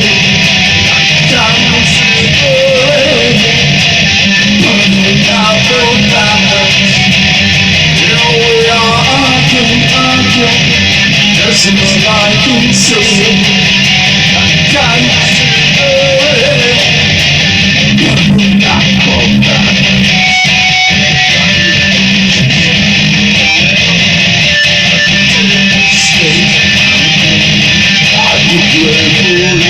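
Electric guitar playing an instrumental passage with mild distortion, mixing strummed chords and single moving notes, recorded on a phone.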